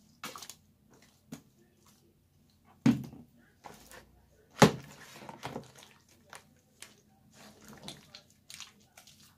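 Hands squishing and kneading wet white slime mixture in a plastic bowl, in irregular squelches, with two louder thumps about three and four and a half seconds in.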